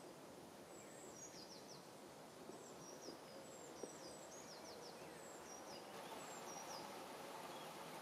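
Faint songbird song: short, high chirping phrases repeated about once a second over a steady outdoor background hiss, fading out in the last couple of seconds.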